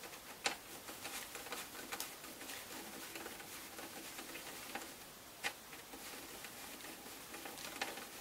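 Faint scraping and scattered light clicks of a screwdriver turning a small screw into a plastic Stormtrooper helmet, with one sharper click about five and a half seconds in.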